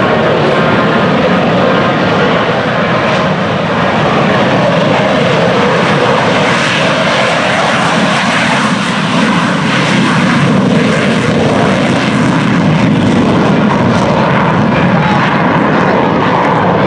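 Propeller airplane engine running loud and steady.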